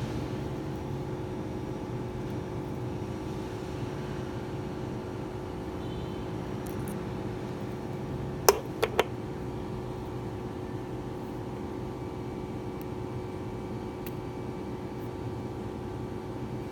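A steady mechanical hum with a few fixed tones in it. About halfway through, three quick sharp clicks in half a second, the first the loudest, as the steel safety pin and pliers are handled.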